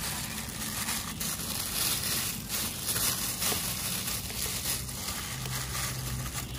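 A pan of cooking oil heating over the cooking fire: a steady crackling hiss, with a low hum underneath.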